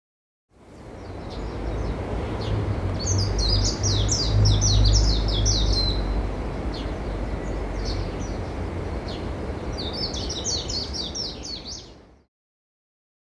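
Steady rushing of surf with a low rumble, and birds chirping in two flurries of quick, high, downward-sweeping calls. It fades in just after the start and cuts off suddenly about a second before the end.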